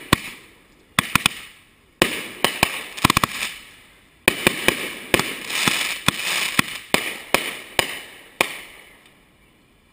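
Consumer aerial fireworks going off: a run of sharp bangs, some in quick clusters, each followed by a fading hiss, thinning out and dying away near the end.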